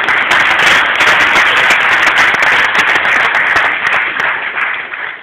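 Audience applauding: a dense patter of many hands clapping that dies down near the end.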